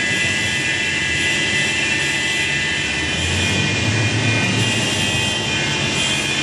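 Hidromek 640WL wheel loader's engine running steadily, with a steady high whine over a low rumble, while its boom lifts and its bucket tilts.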